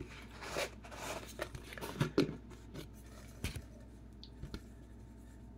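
Small folded paper slips rustling and shifting inside a clear plastic tub as it is handled and opened, then a hand rummaging among them to draw one, with a few light clicks and rustles that die down after about three and a half seconds.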